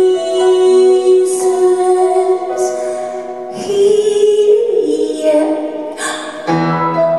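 Live music: piano with a woman singing long, held notes.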